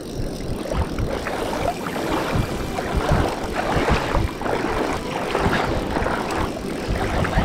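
Wind buffeting a body-worn camera microphone, with irregular rustling and water noise as an angler wades and reels in a hooked bonefish on a fly reel.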